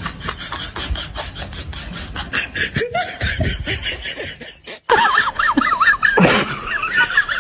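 Laughter, a quick run of laughs that breaks off just before five seconds in. A high, wavering sound follows to the end.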